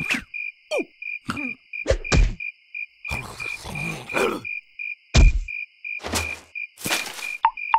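Cartoon soundtrack: a larva character's short wordless cries and falling squeals with comic sound effects, sharp knocks and two longer rushing noises, over a steady background of crickets chirping about five times a second.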